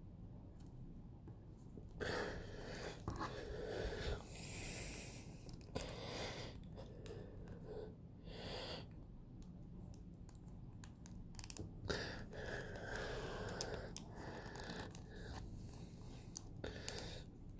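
Hands handling an S.H.Figuarts plastic action figure: fingers rubbing and sliding over the armour pieces in several rustling stretches, with small clicks as the joints are moved.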